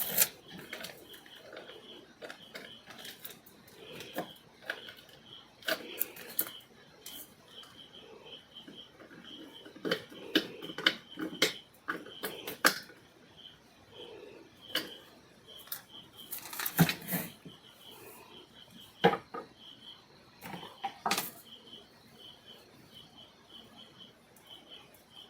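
Irregular clicks, taps and rattles of wires and a screwdriver being worked into the terminals of a plastic switchboard, with a few sharper knocks. A faint high peep repeats steadily underneath.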